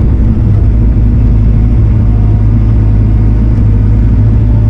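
Diesel engine of a compact earthmoving machine running steadily with a constant low drone while it pushes and spreads dirt.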